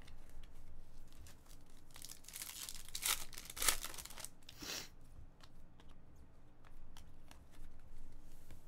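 A foil trading-card pack being torn open: a few rough rips between about two and five seconds in, the loudest just before the middle. After that, light clicks as the stack of cards slides and is sorted in the hands.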